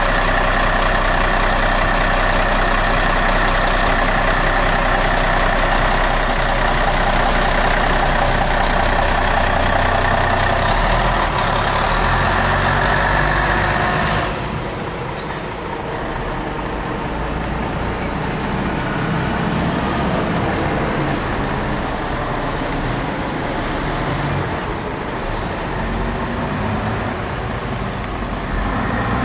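Mercedes-Benz Integro intercity coach's diesel engine running loudly as the coach pulls away and turns. About 14 seconds in the sound drops abruptly, leaving a quieter engine and traffic noise.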